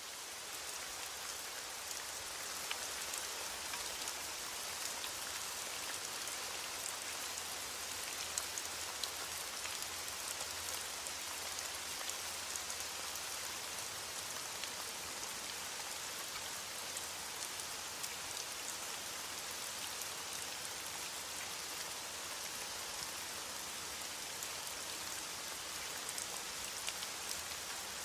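Steady rain falling on lake water: an even hiss with scattered sharper drop ticks.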